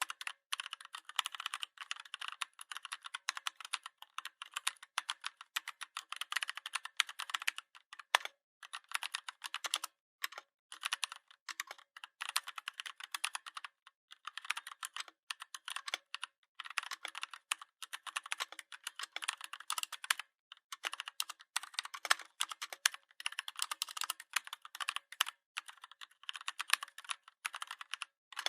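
Typing on a computer keyboard: fast runs of key clicks broken by short pauses every few seconds.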